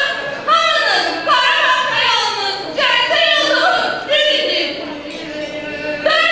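A girl's voice amplified through a handheld microphone in a large hall, delivering a memorial piece in long, drawn-out, melodic phrases, with music faintly behind it.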